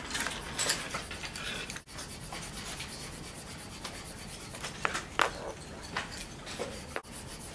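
Pen scribbling rapidly back and forth on an interactive whiteboard to shade in an area: a steady dry rubbing, with a couple of sharper strokes about five seconds in.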